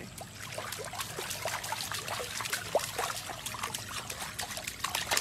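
Pool water splashing and dribbling in many quick small splashes as a husky, held by its body, paddles its legs in a swimming pool.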